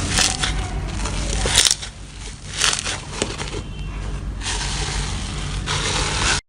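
Slime being squeezed and pressed by hand, giving irregular crackling and squishing noises with many sharp little clicks and pops. The sound cuts off abruptly at the end.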